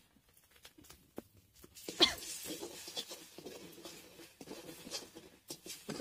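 A metal spatula knocking and scraping in a metal kadai as masala paste is stirred: a few faint ticks, a sharp knock about two seconds in, then a few seconds of scraping.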